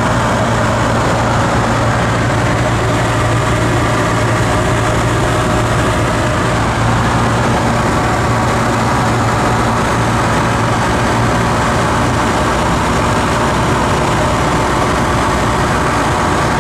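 Single-engine light aircraft's propeller engine droning steadily in cruise, heard inside the cabin, with a low hum and airflow noise.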